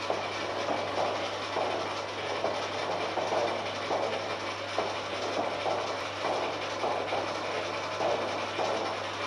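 Metal lathe running: a steady motor hum under a noisy mechanical whirr, with a rhythmic clack about twice a second.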